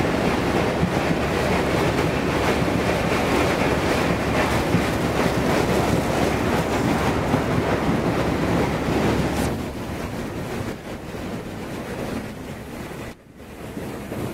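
Ship's hull breaking through sheet ice as much as about 15 cm thick: a dense, steady crackling and grinding of ice against the bow, mixed with wind on the microphone. It drops to a lower level about two-thirds of the way through.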